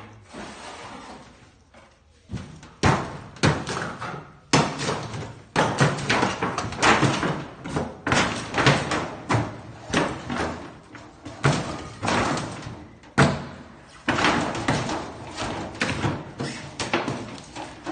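Repeated bangs and knocks from a scrap refrigerator being dismantled, irregular, one or two a second, starting about two seconds in.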